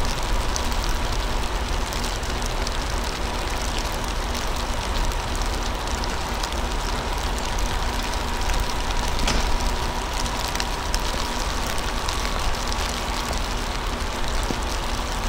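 Steady idling engine rumble with a constant hiss and a faint steady hum, unchanging throughout.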